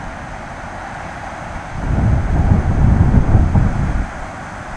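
Thunder rumbling: a low roll that builds about two seconds in and dies away near the end, over a steady background hiss.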